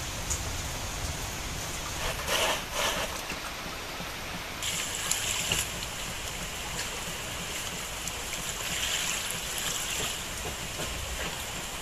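Water running and splashing steadily as rice is rinsed in a woven bamboo basket, starting suddenly about four and a half seconds in.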